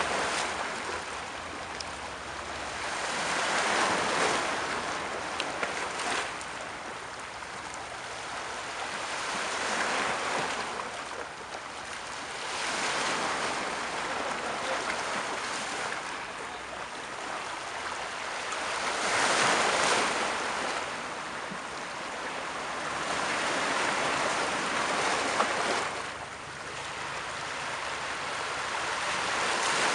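Sea waves breaking, the surf hissing and swelling into a louder surge about every six seconds.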